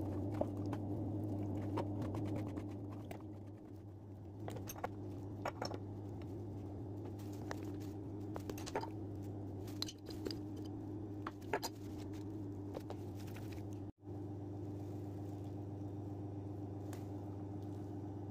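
Knife cutting raw chicken breast on a plastic cutting board and hands handling the wet meat: scattered soft clicks, knocks and squishes over a steady low hum.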